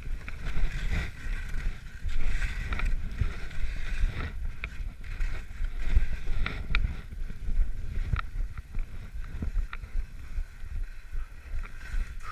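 Skis sliding and scraping down a packed snow track, a continuous hiss over low wind rumble on the microphone, with a few sharp clicks in the second half.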